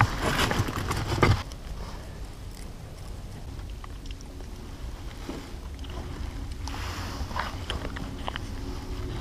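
A rustling in the first second and a half, then a low, steady wind rumble on the microphone with a few light clicks near the end.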